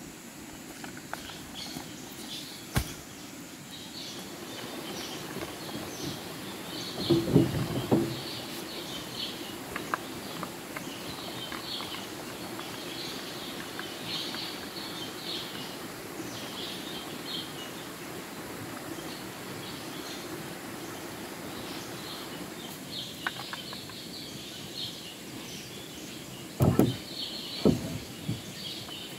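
Outdoor background with birds chirping in short repeated calls, broken by a few loud knocks: a cluster about seven seconds in, another group near the end, and a single sharp click near the start.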